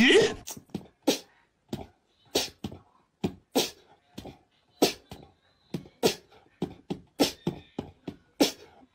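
A sparse percussive beat in a beatbox style: short, sharp hits about two to three a second, with near silence between them.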